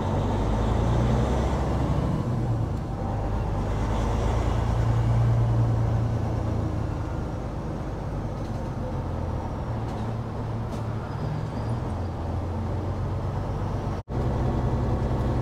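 Caterpillar C15 Acert diesel of a 2011 Peterbilt 389 pulling under way through an 8-inch straight pipe, heard through the open driver's window. Its exhaust note swells about a second in and again around five seconds in, then settles. The sound cuts out for an instant near the end.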